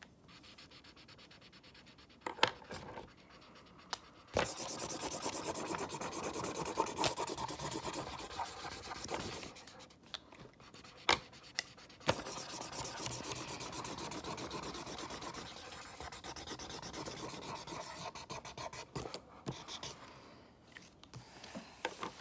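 Felt-tip marker scrubbing back and forth on paper to colour in a picture: a scratchy rubbing in two long stretches, starting about four seconds in and again about twelve seconds in, with a few sharp clicks in between.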